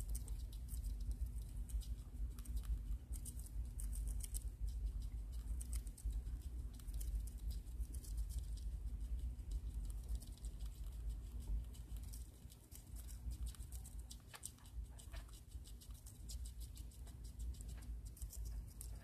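Pet rat chewing crisp pale salad leaf held in its front paws: rapid fine crunching clicks, over a low steady hum.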